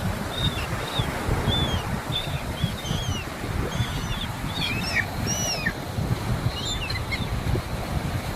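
Small birds chirping in quick short calls that sweep up and down in pitch, over a steady rumble of wind buffeting the microphone. The chirps thin out after about seven seconds.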